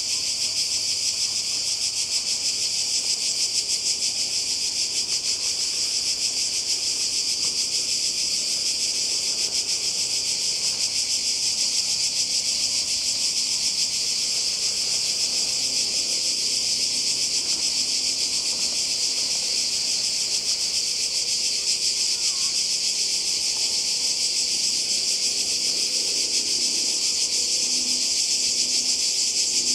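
A dense chorus of cicadas shrilling in a steady, unbroken, high-pitched buzz.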